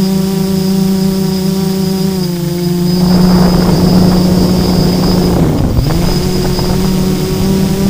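FPV drone's electric motors and propellers, recorded by the onboard camera: a steady buzzing whine that drops a little in pitch about two seconds in. Then a rushing, wind-like noise joins it for a few seconds, and the motor pitch dips sharply and climbs back near the end.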